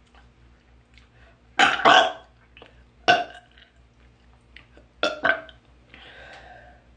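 A woman burping loudly several times: a double burp about a second and a half in, a single burp about three seconds in, and another double burp about five seconds in, with a fainter one near the end.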